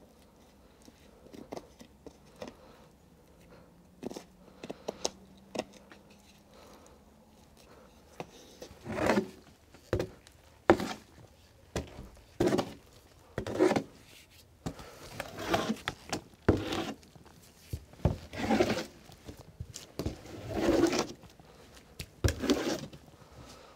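Faint scattered clicks and taps, then from about nine seconds in a steady run of rough scraping strokes, about one a second, as a hand tool clears dirt off a wooden floor.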